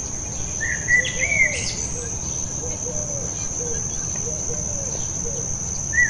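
A steady high insect buzz, like crickets, with a few short bird chirps about a second in and again at the end, and a string of soft, low curving calls in between.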